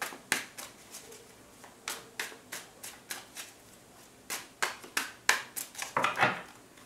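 A hand-held deck of tarot cards being shuffled: an irregular string of sharp card slaps and flicks, with a denser, louder rustle about six seconds in.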